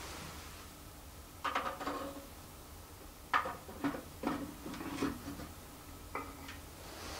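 Metal carriage lantern knocking and clinking against its brass wall bracket as it is lifted and slotted into place: about six short clatters spread over several seconds, some with a brief metallic ring.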